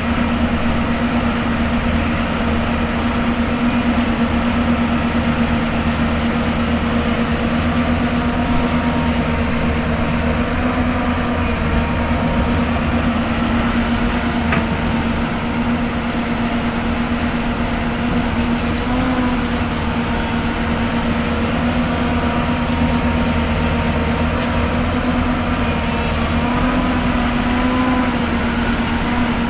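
Hyundai Robex 220-9S excavator's diesel engine running steadily while it works, a constant hum whose pitch wavers briefly twice in the second half.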